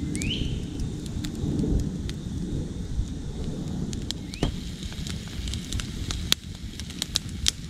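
Wood campfire crackling, with sharp scattered pops over a steady low rumble.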